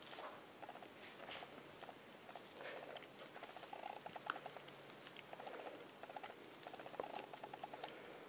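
Faint scuffling and soft pattering of two four-week-old kittens play-fighting on a carpet, with light scratchy clicks scattered through.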